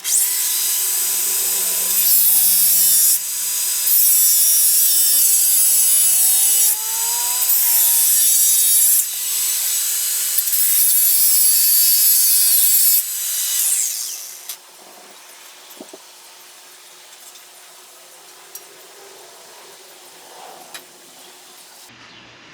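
A steel bolt being cut down by about 10 millimetres so it threads fully into the differential. A loud, harsh cutting noise comes in several spells of one to three seconds, with its pitch gliding up and down, and stops about thirteen seconds in.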